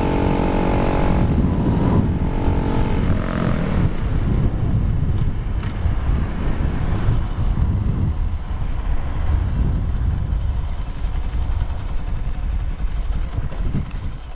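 2015 Honda Grom's single-cylinder motorcycle engine running at a steady road speed. About three seconds in its note drops as the throttle eases off, and after that there is a low, uneven engine rumble mixed with wind noise as the bike slows.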